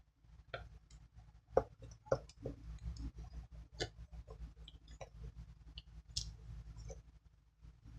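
Fluffy slime being squished and stretched by hand, giving irregular sticky clicks and pops, the loudest about one and a half and two seconds in.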